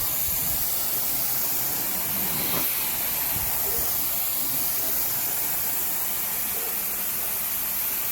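Carpet-cleaning extraction wand spraying rinse into the carpet and sucking it back up, a steady hiss that does not let up.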